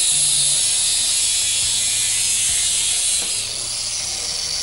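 Angle grinder with a thin cut-off disc, clamped in a chop stand, cutting through square steel tube with a loud high hiss. About three seconds in the disc breaks through, the sound drops and the grinder's whine falls in pitch as the disc spins freely.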